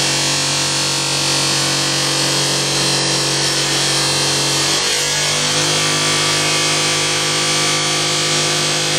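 Power sanding tool running steadily while an abrasive grinds down curb damage on an aluminium alloy wheel rim: a steady motor hum under a dense grinding hiss. The motor note shifts slightly about five seconds in.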